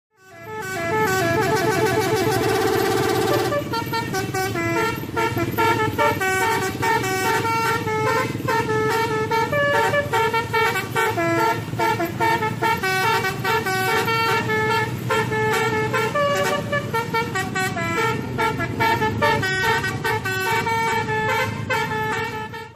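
Bus 'telolet basuri' musical horn playing a tune in stepping notes, opening with a held chord for about three and a half seconds, over a steady low rumble.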